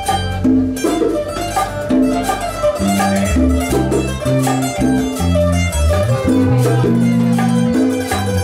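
Instrumental music with strings and a bass line that moves note by note.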